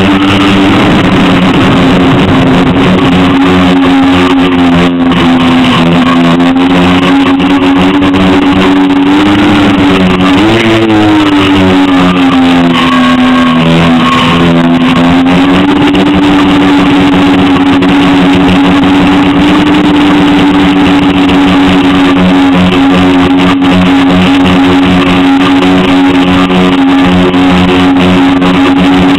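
Multicopter's electric motors and propellers running, heard loud and close from a camera on the frame: a steady buzzing hum whose pitch follows the throttle, bending up and down about ten seconds in and sitting lower for a few seconds before settling back.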